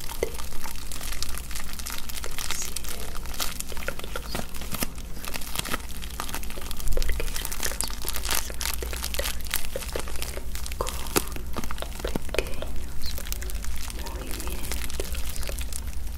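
Clear plastic wrap crinkled and crushed between the fingers close to the microphone: a dense, continuous crackling with many small sharp crackles.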